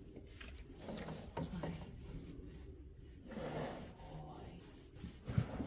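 Faint rubbing and scraping of a pole being stroked over a horse's coat, in soft, irregular strokes with a slightly louder rub about three and a half seconds in.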